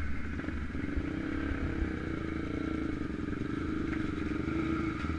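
ATV engine running at a steady pace, with a constant even drone and no revving.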